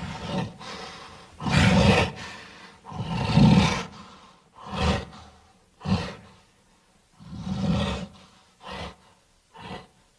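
Bornean orangutan calling: a series of about eight loud, deep calls roughly a second apart, growing shorter and fainter near the end.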